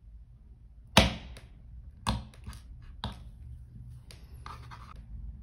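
Sharp clicks and taps of a soldering iron tip working a metal hinge into a plastic eyeglass frame: four clicks about a second apart, the first the loudest, then a brief scratchy rustle near the end.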